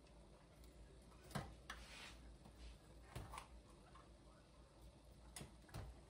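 A handful of faint, irregular clicks and light taps as a roasted turkey is handled in a stainless steel roasting pan, over otherwise near-silent room tone.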